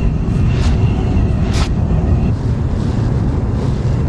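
Wind buffeting a chest-mounted action-camera microphone, a loud steady rumble. A few sharp clicks and a thin steady whine sound in the first two seconds, the whine stopping about two seconds in.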